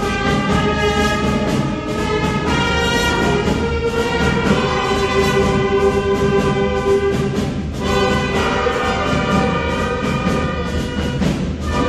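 Elementary school wind band playing: brass and woodwinds holding sustained chords that change every few seconds, with short breaks between phrases about eight seconds in and near the end.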